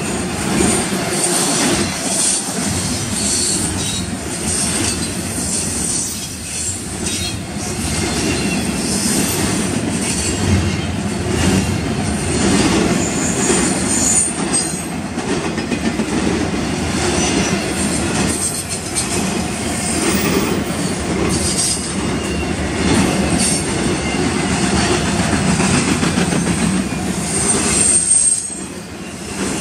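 Double-stack intermodal freight cars rolling past at speed: a steady rumble of steel wheels on rail with repeated clicks over the rail joints and brief high metallic squeals now and then.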